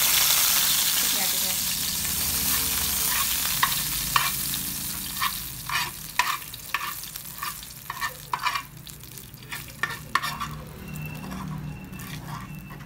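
Hot oil with annatto seeds sizzling in a nonstick frying pan, with a spoon scraping and tapping against the pan as the seeds are scooped out. The sizzle is loudest at the start and fades steadily, while the taps come in quick irregular clicks from a few seconds in.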